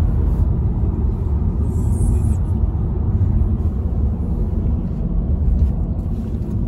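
Steady low rumble of a car driving on the road, heard from inside the cabin: tyre and engine noise.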